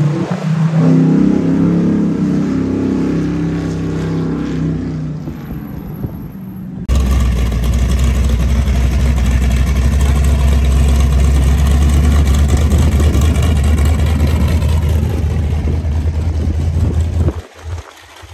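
Classic Mopar car engines and exhausts on the road. One car's engine fades as it pulls away over the first few seconds. About seven seconds in, a louder, steady, deep exhaust takes over as a red classic Mopar coupe drives close past, and it cuts off about a second before the end.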